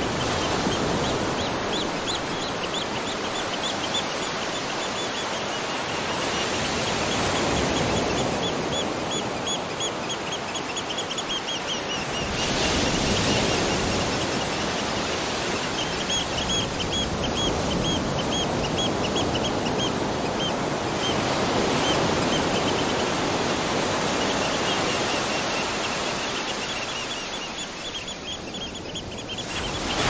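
Waterfall rushing steadily. Over it, a small bird sings long runs of quick, high chirps in several bouts.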